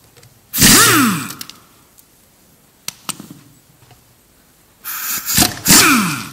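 Air impact wrench undoing the crankshaft pulley bolts: two loud bursts, one about half a second in and one near the end, each ending with the tool's pitch falling as it winds down.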